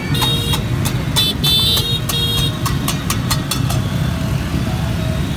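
Many motor scooters running slowly in a dense crowd, a steady engine drone. Over it, in the first half, come repeated short high-pitched toots and sharp clacks.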